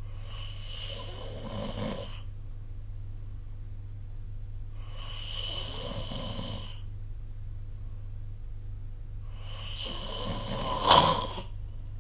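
A person snoring in sleep: three snores about four seconds apart, the third the loudest, rising to a sharp peak near its end. A steady low hum runs underneath.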